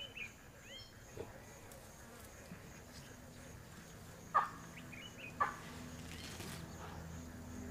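Faint bush ambience: insects buzzing and a few brief bird chirps, with two short sharp sounds about four and a half and five and a half seconds in. A faint low steady hum comes in about halfway.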